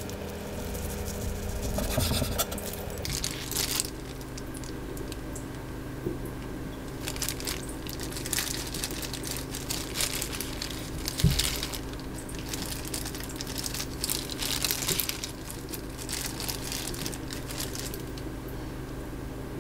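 Irregular scraping, rubbing and rustling noises, with one sharper knock about 11 seconds in, over a steady low hum.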